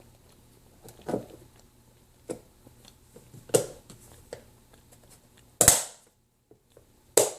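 Close-up crunching of a hard, brittle chunk being bitten and chewed: about six separate crisp crunches, the loudest two near the end.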